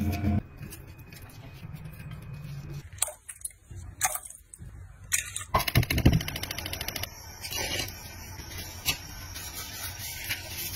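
Scattered kitchen handling sounds: clicks, knocks and scrapes of utensils and cookware, with a short spell of rapid crackling about six seconds in.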